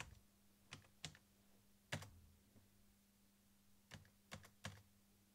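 Keys being pressed one at a time on an Amstrad NC100 notepad computer's keyboard: about six separate soft key clicks, spaced unevenly, with a faint steady hum underneath.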